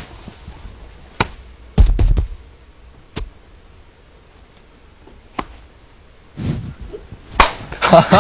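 A few scattered taps and thumps, about five, from hands gesturing and touching during silent miming, one heavier thump about two seconds in. Laughter breaks out near the end.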